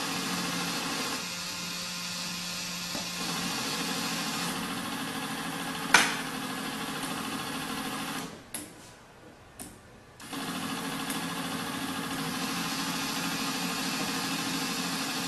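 Small electric motors of a tabletop model factory running with a steady whirr. A single sharp click comes about six seconds in; a little later the running stops for about two seconds, with two clicks in the lull, then starts again.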